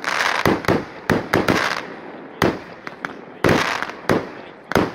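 Fireworks display: aerial shells bursting in a rapid series of sharp bangs, about ten in five seconds, with a rushing hiss between them.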